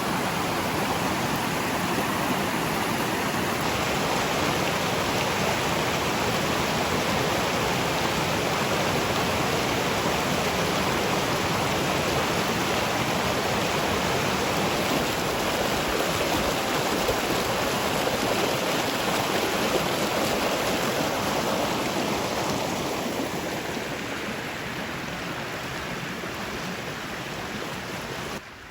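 Forest stream rushing over small cascades: a steady, even rush of water that fades gradually over the last few seconds and then drops off suddenly at the very end.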